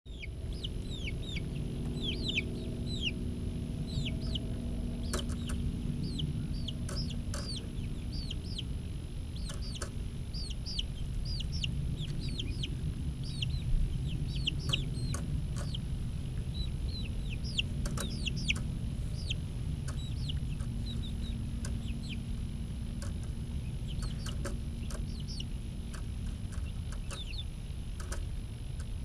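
Young chicks peeping: a constant run of short cheeps, each falling in pitch, several a second. Scattered sharp clicks and a low rumble run beneath them.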